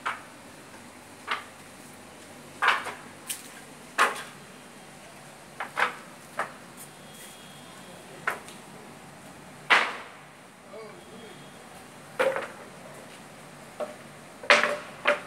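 Steel scaffolding parts being handled and knocked together: a dozen or so irregular sharp metal bangs and clanks, roughly one a second. Some ring briefly, and the loudest come about ten seconds in and near the end.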